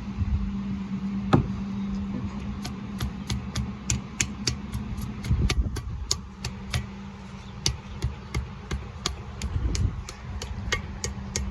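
A knock about a second in, then a run of sharp, evenly spaced clicks, about three to four a second, from hand work on engine parts, over a steady hum.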